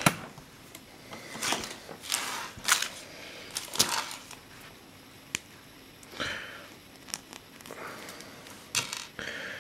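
Small plastic pieces of a miniature construction-set figure being handled and fitted together on a wooden table: scattered sharp clicks and taps, with several short rustles in between.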